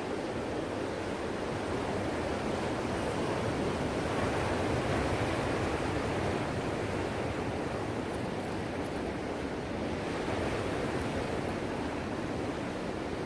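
Ocean surf: a steady wash of breaking waves, swelling a little about four to six seconds in.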